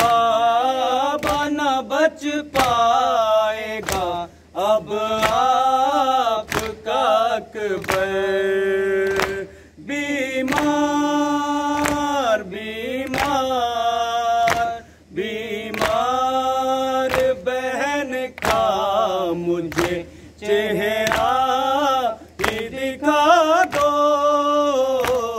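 A man chanting a noha, an Urdu Muharram lament, into a microphone, in long held notes with short breaths between lines. Sharp thumps keep a steady beat about once a second under the chant, the beat of matam (chest-beating) that accompanies a noha.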